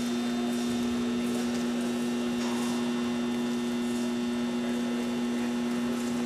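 Steady electrical mains hum: two held low tones over a faint hiss, unchanging throughout.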